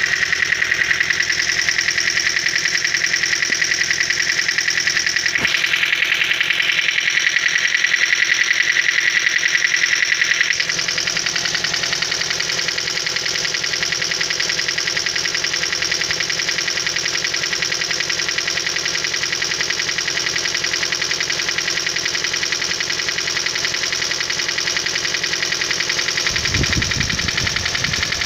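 Toyota 1ZR-FE inline-four engine running cold with a fast, steady ticking knock from its hydraulic lash adjusters, the typical cold-start knock of the lifters. The sound drops slightly about ten seconds in, and a brief low rumble comes near the end.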